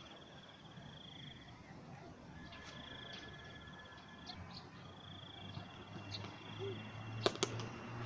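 Insect trilling, likely a cricket: a high, fast pulsed trill in stretches of about one and a half seconds with short gaps. A low steady hum comes in about halfway, and two sharp clicks sound close together near the end.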